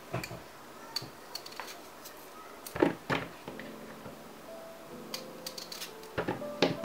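Small new potatoes knocking against each other and against a ceramic bowl as they are handled and halved, a scatter of sharp clicks with two louder knocks about three seconds in, over faint background music.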